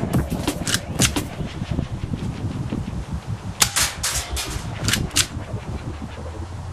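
H&K P8 6mm soft-shooter BB pistol being worked and fired: a series of sharp clicks and snaps of the slide and shots, several in the first second or so and another cluster from about three and a half to five seconds in.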